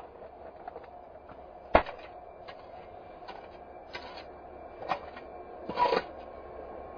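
A few sharp clicks and knocks, about three seconds apart, with two short rustling bursts between them, over a faint steady background.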